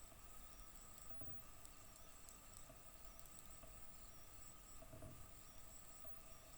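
Faint steady hum and high whine of a fiber laser marking machine, several steady tones held throughout. A soft low thump comes about a second in and another near the five-second mark.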